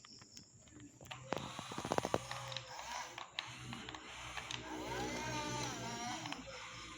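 Small electric motors of RC construction models whining, rising and falling in pitch as they speed up and slow, with a run of clicks and rattles about a second in.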